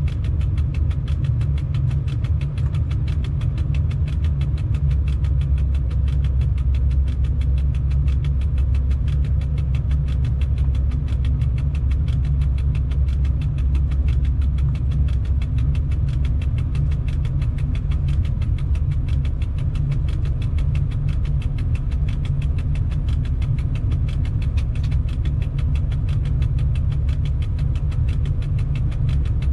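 Steady low rumble of a moving freight train's electric locomotive, heard from inside the driver's cab, with a faint steady hum above it.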